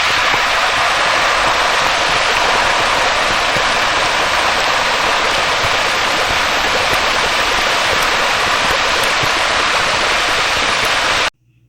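Loud, steady rushing noise with no tone or rhythm, played as the video's intro, cutting off suddenly near the end.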